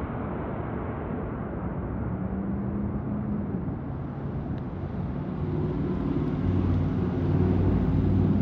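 Boeing 747-8F's four GEnx jet engines rumbling during landing, growing louder in the second half as steady low engine tones come through.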